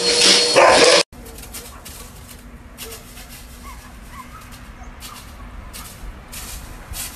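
A husky howling and yowling with a vacuum cleaner's motor running, cut off abruptly about a second in. Then a much quieter yard with faint bird chirps and short bursts of rustling.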